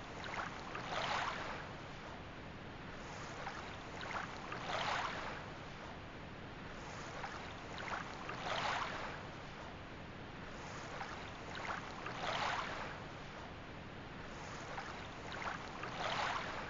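Water washing in gentle, even swells: a soft rush rises and falls about every four seconds over a steady background hiss.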